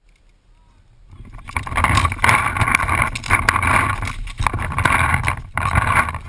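Loud, ragged rustling and rattling movement noise from a camera mounted on a paintball marker's Dye Rotor loader as the player moves, starting about a second in, with a few sharp pops mixed in.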